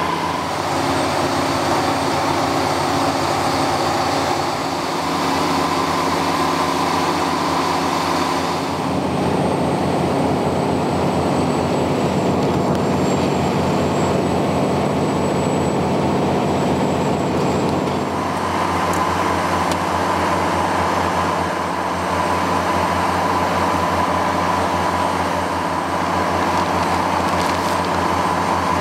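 Reverse-circulation drill rig's diesel engine and machinery running steadily: a deep engine hum with a steady high whine above it. The tone changes abruptly twice, about nine and eighteen seconds in.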